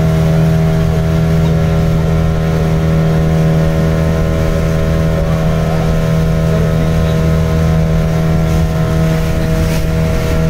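Motorboat engine running at a steady speed, heard from on board; its drone holds one even pitch.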